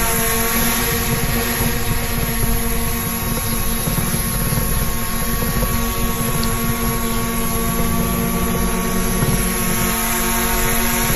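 A small quadcopter drone's motors and propellers running in flight, heard through its own onboard microphone: a steady, even hum of several tones with a rush of air noise.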